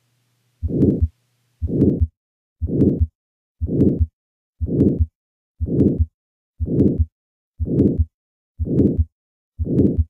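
Recorded heart sounds of aortic stenosis: a crescendo-decrescendo systolic murmur that swells and fades between the first and second heart sounds, repeating about once a second.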